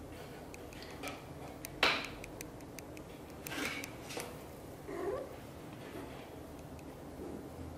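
Soft clicks, scuffs and wet licking strokes from a British shorthair mother cat grooming her kitten, with one sharper click about two seconds in.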